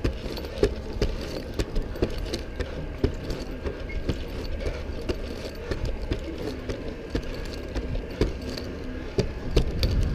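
Lineman climbing a wooden utility pole: repeated knocks and scrapes of climbing gear against the wood, with metal carabiners and strap hardware jingling, over a steady low rumble.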